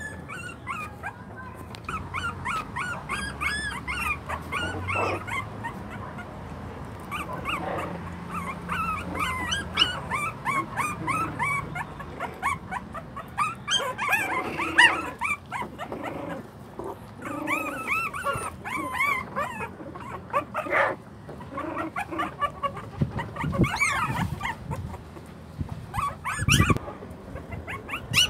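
Young puppies whimpering and yipping: a run of many short, high-pitched cries that rise and fall, overlapping one after another. There are a few sharp knocks in the last few seconds.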